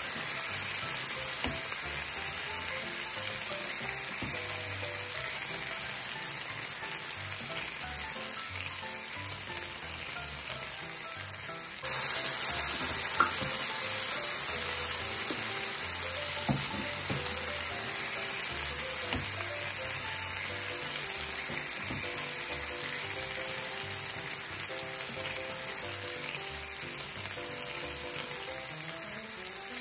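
Okonomiyaki and yakisoba noodles sizzling on a hot griddle, a steady frying hiss that gets suddenly louder about twelve seconds in. Soft background music plays underneath.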